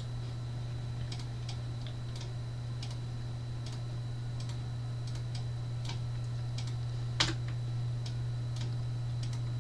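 Scattered faint clicks of a computer mouse and keyboard, with one sharper click about seven seconds in, over a steady low hum.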